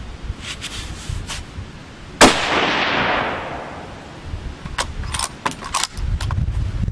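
A single rifle shot from a bolt-action Remington 700 with a JP muzzle brake, a sharp crack about two seconds in with a long echo that fades over a second and a half. A quick series of clicks follows about two and a half seconds later, over a low wind rumble on the microphone.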